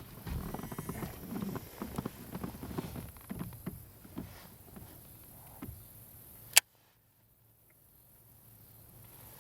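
A run of small irregular knocks and taps for about four seconds, fading off, then a single sharp click about six and a half seconds in, after which it goes nearly quiet.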